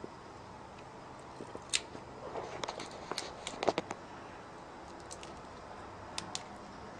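Scattered small clicks and taps from tools working a laptop motherboard as a part is pried off it, with a run of quick clicks in the middle and two more near the end.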